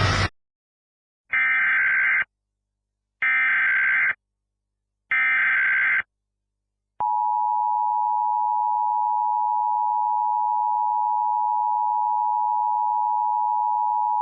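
Emergency Alert System opening tones. First come three short bursts of SAME header data, each about a second long and about two seconds apart. Then, about seven seconds in, the steady two-tone EAS attention signal starts and holds without a break.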